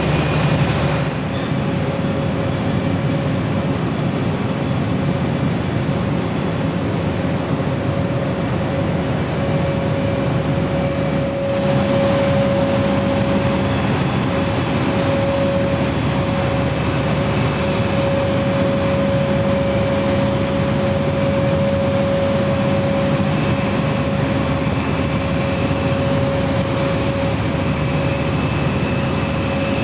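Steady machine drone of airport ground-service equipment, with a constant mid-pitched whine over a noisy rumble. The noise steps up a little about twelve seconds in.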